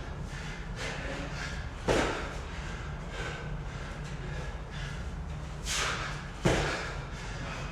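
Two heavy thuds about four and a half seconds apart, the sound of workout equipment or a body landing on a gym floor, with hard breaths between them.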